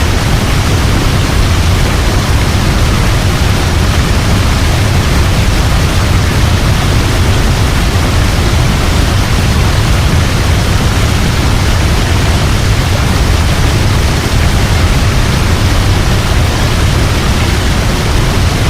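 Waterfall rushing steadily: an even, unbroken noise, strongest in the low end.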